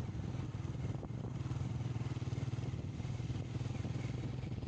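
A vehicle engine running steadily, with a low, rapid, even pulse.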